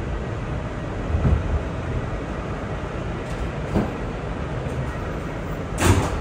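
Steady low rumble of an R211A subway car running on the track and pulling into a station, with a couple of faint knocks. Near the end comes a short, loud burst of noise as the car's doors open.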